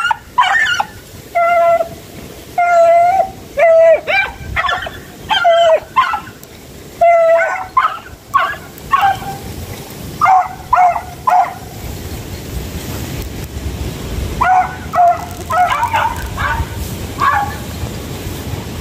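Hunting beagle giving tongue on the hunt for a small Indian civet (dedes): a long run of short, high yelping barks one after another, a pause of about three seconds past the middle, then a few more yelps.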